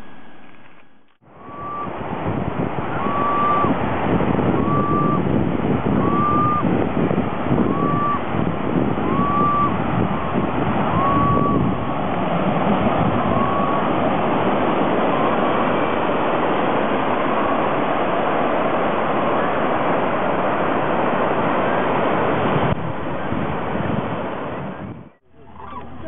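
Loud, steady rushing of wind and surf, with a bird's short call repeated about nine times at even intervals in the first half. The noise fades out near the end.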